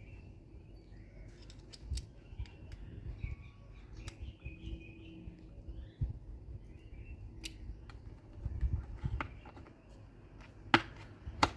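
Scattered small clicks and taps of a screwdriver on a wiring terminal connector and of a plastic light mounting plate being handled, as wires are fastened and pressed into place; two sharper clicks near the end are the loudest.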